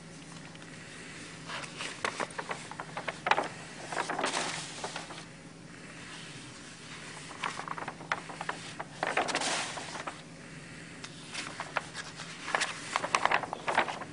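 Large sheets of brown paper rustling and crackling as they are handled and turned over, in several separate bouts, over a faint steady room hum.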